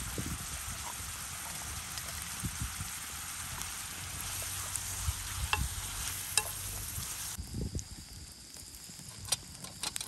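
Samosas frying in hot oil: a steady sizzle with scattered pops and light taps. The sizzle stops abruptly about seven seconds in, leaving a few sharp clicks.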